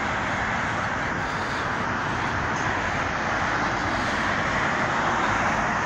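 Steady road traffic noise: cars and tyres passing through a busy multi-lane intersection, an even hiss without any single distinct event.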